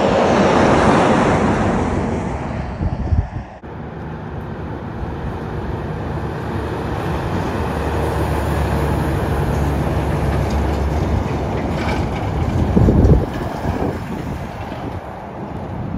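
A double road train passes at highway speed, a broad rush of tyre and wind noise that peaks about a second in and then fades. After a sudden cut, a Volvo FH prime mover hauling a road train of tank-container trailers passes slowly, its diesel engine running with a steady low drone, with a loud low thump from the trailers near the end.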